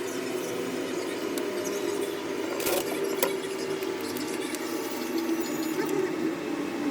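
Steady hum of a small motor or fan, with faint ticks and one sharp click between two and three seconds in.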